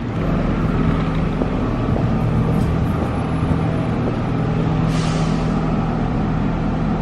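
City street traffic noise with a vehicle engine humming steadily.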